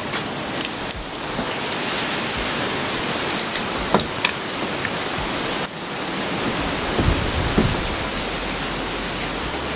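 A steady rushing hiss with a few light clicks as lobster shells are pulled apart by hand; the hiss dips suddenly a little past halfway.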